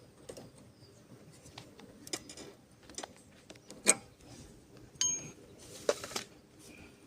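Scattered clicks and knocks of small metal objects being handled, with a short metallic ringing clink about five seconds in.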